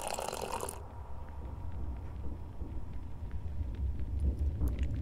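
Hot water pouring into a mug, cut off abruptly under a second in, leaving a low steady rumble.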